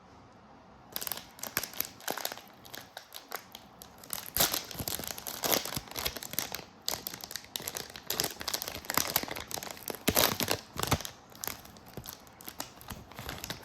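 Panini Prizm basketball card pack wrappers crinkling and tearing as the value pack is unwrapped and the packs are ripped open. The crackling is irregular and starts about a second in, with louder bursts around the middle and again near the end.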